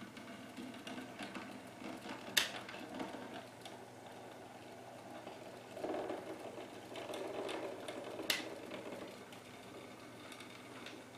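OO gauge model diesel shunter's motor whirring as it pushes a rake of tank wagons, with wheels clattering over the rail joints and points. Two sharp clicks, one about two seconds in and one about eight seconds in, and a louder stretch of rattling in between.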